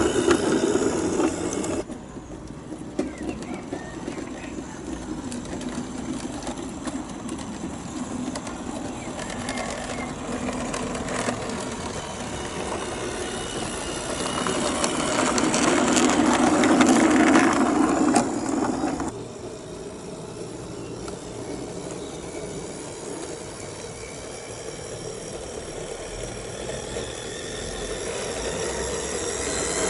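Radio-controlled 16mm-scale garden-railway railcar running along the track, its gearhead motor and bevel gear drive running and its wheels rolling on the rails. It gets louder for a few seconds around the middle as it runs close by.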